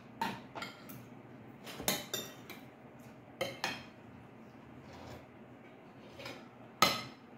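Metal spoons clinking and scraping against ceramic plates and a serving bowl while eating: a scatter of short, sharp clinks, the loudest one near the end.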